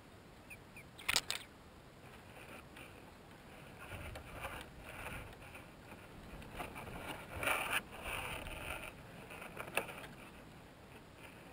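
Rustling and scraping of dry grass nest lining as an adult Cape Rockjumper shifts on the nest and climbs out, with a sharp scrape about a second in and a longer spell of rustling in the middle, loudest a little past halfway.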